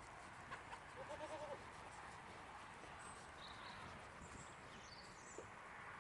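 A goat gives one short, faint bleat about a second in.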